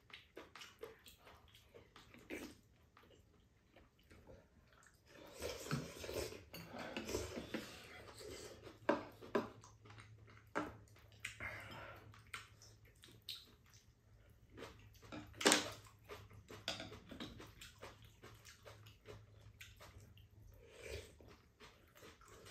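Two people eating rice cake soup: spoons and chopsticks clinking against ceramic bowls, with slurping of broth and chewing. The loudest clink comes about two-thirds of the way through.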